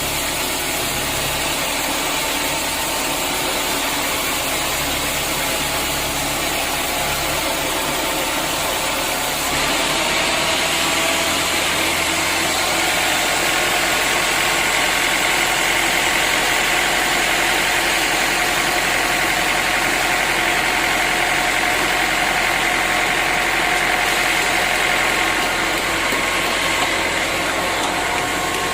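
Sawmill machinery running steadily: a motor's hum with a hiss over it. About ten seconds in it gets a little louder and a higher whine joins in.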